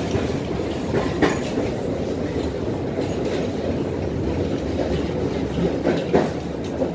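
Tatra T6B5 tram running along the track, heard from inside the car: a steady rumble of the wheels and running gear, with sharp clacks from the wheels on the rails, a pair about a second in and another pair near the end.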